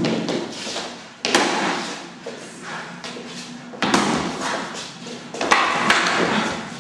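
Eskrima sticks striking in a sparring bout: sharp hits, one about a second in, another near four seconds, and two in quick succession around five and a half to six seconds.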